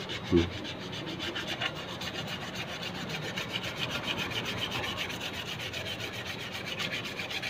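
Rapid scraping and rubbing of small metal carburetor parts being handled on a concrete floor, with one knock near the start.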